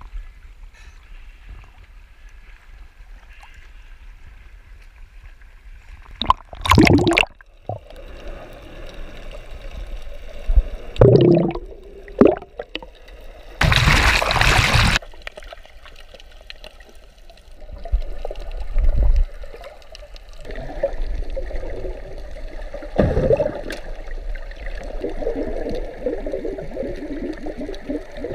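Sea water splashing and sloshing around a snorkeler's action camera, with several loud sudden splashes and the loudest one about halfway through as the camera goes under the surface. After that comes muffled, crackly underwater noise.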